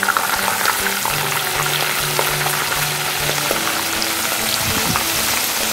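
Pieces of salted Indian mackerel frying in hot oil in a wok: a steady sizzle with small pops and crackles.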